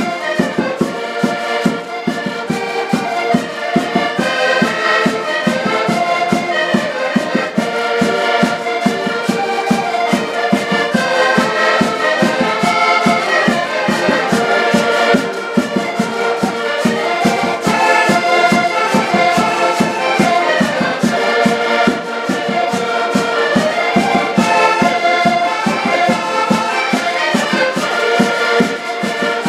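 An ensemble of several accordions playing a traditional Portuguese dance tune, with sustained chords over a steady beat.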